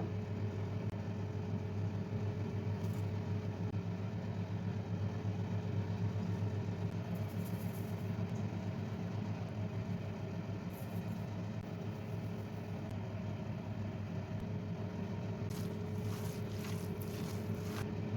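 An electric kitchen appliance's motor running with a steady hum, cutting off just after the end.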